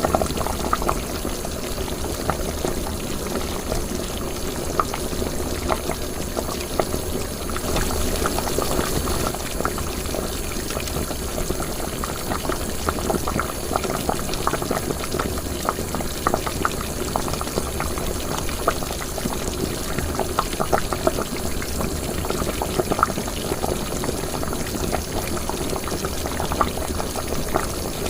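Liquid boiling during cooking: a steady bubbling dotted with frequent small pops.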